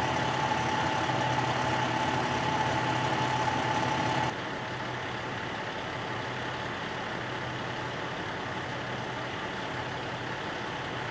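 Heavy vehicle engine idling steadily with a steady hum. A little over four seconds in, the sound drops abruptly to a quieter, even rumble and hiss.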